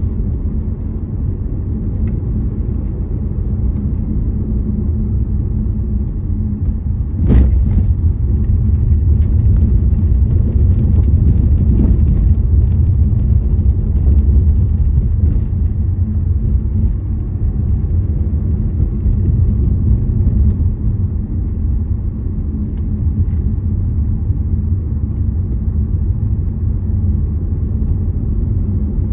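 A car driving along the road: a steady low rumble of engine and tyres. A single sharp knock comes about seven seconds in, after which the rumble is a little louder.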